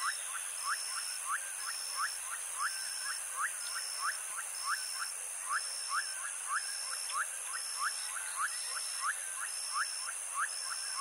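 Flamingos calling: short, squeaky, upward-hooked calls repeated at about three a second, over a steady high whine and a faint high pulsing tone.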